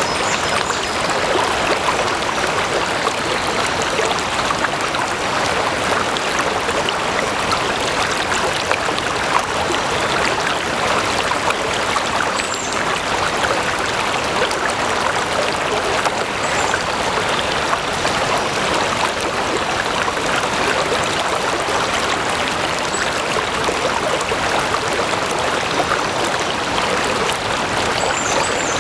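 Stream water flowing and babbling steadily over stones, an unbroken rush with no change in level. A few faint, short high chirps sound over it, about twelve seconds in, again a few seconds later, and near the end.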